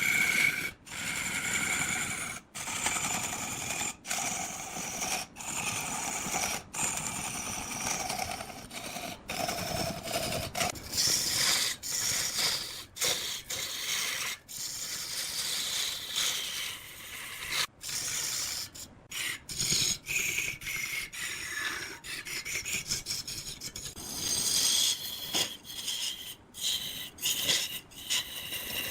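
Woodworking tools scraping and cutting into wood, a rasping, rubbing sound with high whining tones, broken by many brief dropouts.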